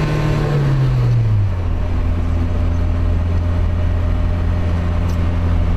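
Car engine and road noise heard from inside the cabin while driving: a steady low drone, with the engine note dropping over the first second and a half before settling.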